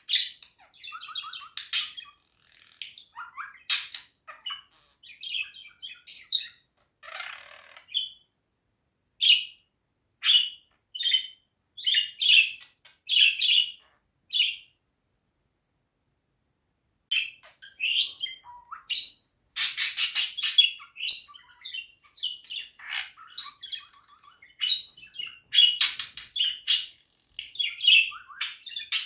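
Budgerigar chattering in quick, short chirps and warbles, falling silent for a couple of seconds about halfway through, then chattering more busily again.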